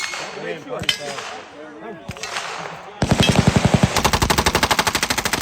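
A long burst of automatic gunfire begins about three seconds in: a rapid, even string of shots lasting about two and a half seconds. Voices come before it.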